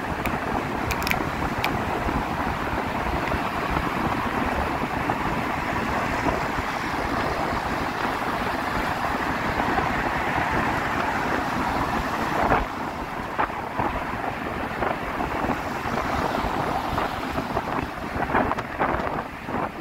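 Wind rushing over the microphone with vehicle road noise beneath, a steady roar while riding along a road. A short knock comes about two-thirds of the way through.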